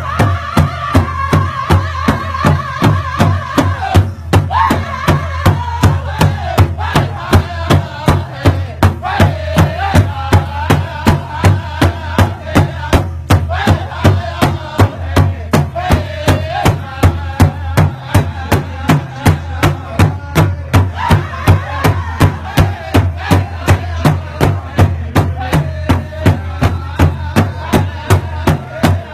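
Group drumming: a large drum beaten in a steady beat, about two beats a second, with high singing voices wavering over it.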